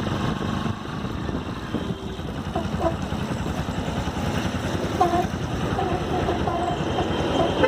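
Bajaj Pulsar NS200's single-cylinder engine running, with a whine from the rear brake coming and going over it as the brake is pressed, mostly in the second half.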